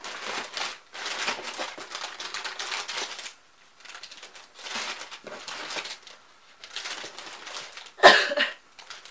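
Cardboard box flap being torn and the box and packets inside rustled and crinkled, in stretches of dry crackling. A short, loud cough near the end.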